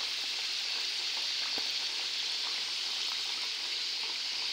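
Samosas deep-frying in hot oil in a steel pot: a steady sizzling hiss with small scattered crackles. The pastry is still raw, early in the fry.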